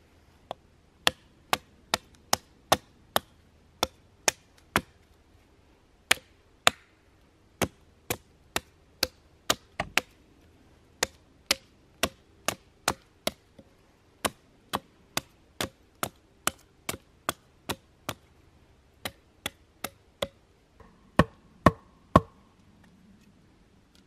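Hatchet chopping wood in quick, regular strokes, about two a second, in several runs broken by short pauses. The three hardest strikes come near the end.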